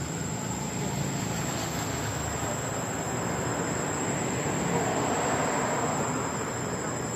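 Steady high-pitched insect drone over a broad rushing noise that swells about five seconds in.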